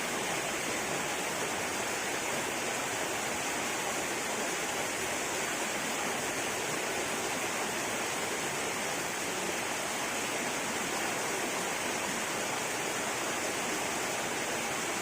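Steady rushing of flowing water, an even noise that does not change.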